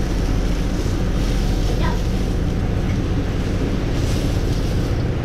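Fillet steaks sizzling in a hot non-stick saucepan as they are forked out onto a plate: a steady hiss over a low hum.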